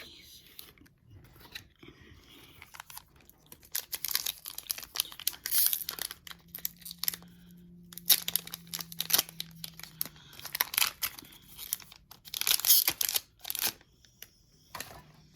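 Foil Pokémon booster pack wrapper being torn open and crinkled: a run of crackling, tearing rustles, loudest about eight seconds in and again toward the end.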